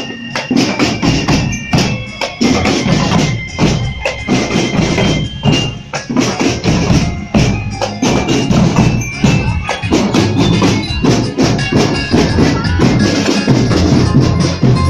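Loud percussion music: rapid, dense strikes with ringing metallic tones over them.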